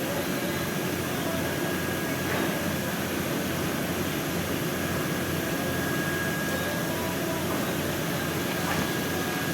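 Steady mechanical hum with a faint, constant high tone running through it, unchanging throughout.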